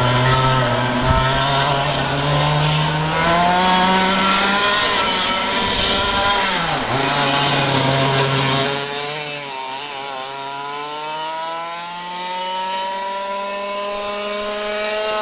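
Racing kart engine running hard, its pitch rising as it accelerates, falling sharply about seven seconds in as it slows, then climbing steadily again toward the end.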